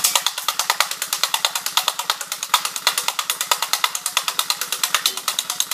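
Electric airsoft Thompson submachine gun replica firing a long full-auto burst: an even, rapid rattle of shots at about a dozen a second. The gun is running on a battery below full charge, so it is firing weaker than usual.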